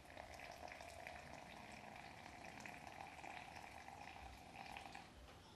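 Water poured in a thin stream from a gooseneck kettle into an AeroPress chamber onto ground coffee, a steady pour that stops about five seconds in.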